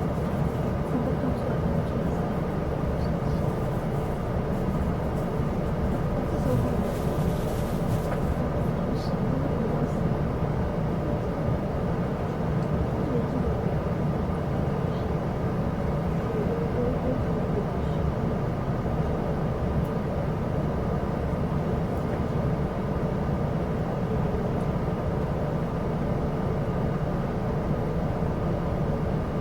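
Steady rumble of a Chu-Kuang Express passenger coach running along the track, heard from inside the carriage, with a brief hiss about seven seconds in.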